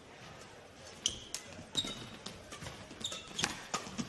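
Badminton rackets striking the shuttlecock in a fast doubles rally: a string of sharp cracks starting about a second in, two or three a second.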